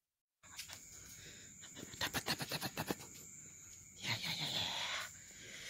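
Crickets trilling steadily in the night background, with a run of rapid clicks about two seconds in and a louder burst of rustling about four seconds in.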